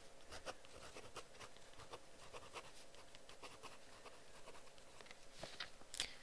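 Faint handwriting on paper: short scratchy strokes one after another, with a couple of louder strokes near the end.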